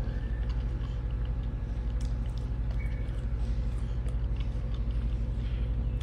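A person chewing a piece of roasted potato, faint mouth sounds over a steady low hum.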